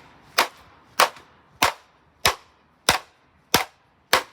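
Repeated sharp blows hitting the grill of a fan heater, seven strikes at an even pace of a little under two a second, each with a short ringing tail.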